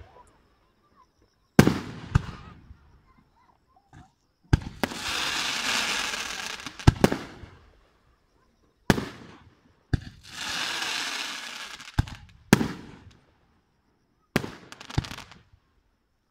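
Aerial fireworks shells bursting: about ten sharp booms at uneven intervals, each trailing off. Two stretches of dense steady hiss, each about two to three seconds long, fill the gaps between them.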